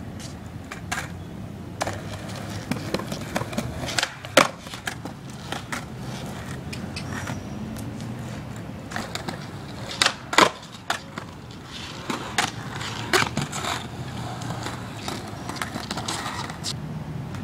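Skateboard on concrete: wheels rolling, broken by repeated sharp clacks of the tail popping and the board slapping down on the pavement during nollie 360 shove-it attempts. The loudest clacks come about four seconds in and around ten seconds in.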